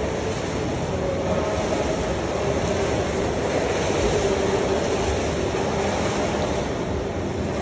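Steady roar of an indoor swimming pool hall, ventilation and water noise, with a swimmer's freestyle strokes splashing in the water.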